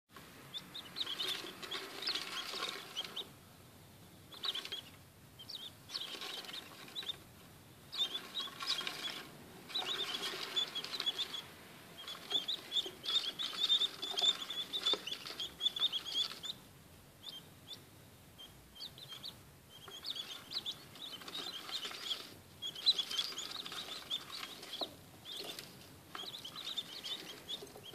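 Several king quail (Chinese painted quail) chicks peeping: bouts of quick, high chirps, a few seconds each, broken by short pauses.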